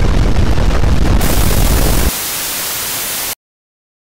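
A loud deep rumble of earthquake shaking, with a steady static hiss joining about a second in. The rumble drops out about two seconds in, leaving only the static, which cuts off suddenly to silence near the end as the live camera feed goes dead.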